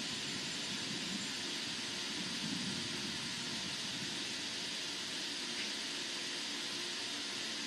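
Steady outdoor background hiss with a faint low hum underneath, unchanging throughout, with no distinct calls or events.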